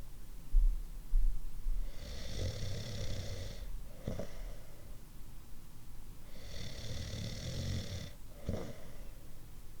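A person snoring: two long rasping breaths about four seconds apart, each with a high hissing edge and each ending in a short sharp catch. Two loud low thumps come about half a second and a second in.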